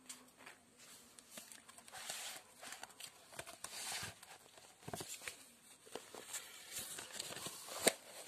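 Paper notebook pages being handled and turned: irregular paper rustling with scattered light taps, the loudest a sharp tap near the end.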